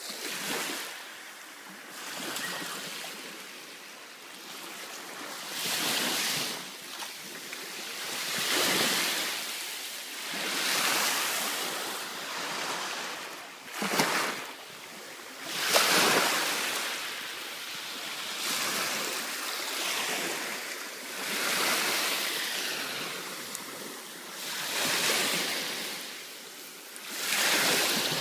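Small sea waves washing onto a sandy shore, swelling and fading every two to three seconds. A couple of short knocks about halfway through.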